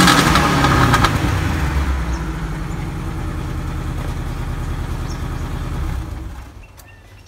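Subaru L-Series flat-four engine dropping back from a rev to a steady idle through a repaired exhaust whose muffler has been cut open and its baffle drilled with more holes, then falling quiet about six and a half seconds in as it is switched off. It revs a lot freer.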